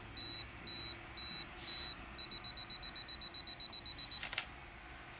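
Digital camera self-timer counting down: long high beeps about twice a second, speeding up to rapid beeps about two seconds in, and ending with the shutter click a little after four seconds.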